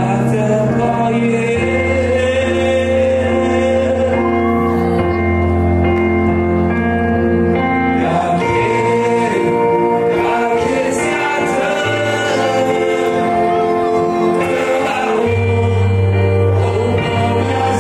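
A man singing a slow song into a microphone over instrumental accompaniment of held chords and a deep bass note that changes every few seconds.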